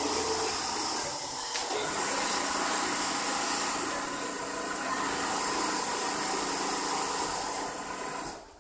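Steady machine hum and hiss of a workshop full of computerized automatic template sewing machines running, dropping away at the very end.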